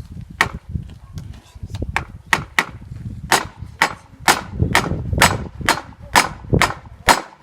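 Hammer blows on a metal wheel rim to straighten a bend: about fifteen sharp, ringing strikes at roughly two a second, growing louder and more regular after the first few.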